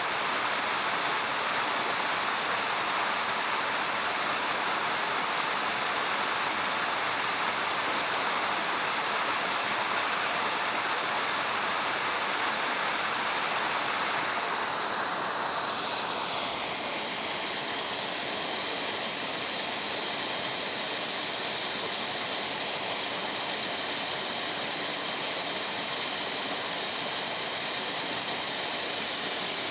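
Waterfall: a steady rush of falling water. Around the middle, the rush shifts lower in tone over a couple of seconds, then holds steady.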